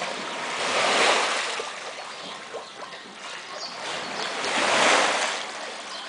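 Water surging in two slow swells, each rising and fading over about a second and a half, like small waves washing into a pool, over a steady low wash.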